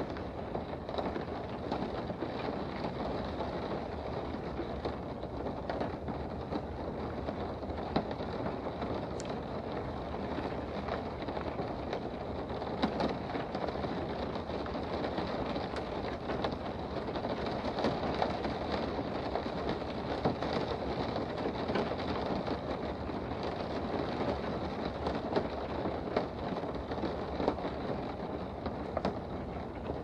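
Rain falling on a car's windows, heard from inside the car: a steady hiss of rain with scattered sharper taps of individual drops striking the glass.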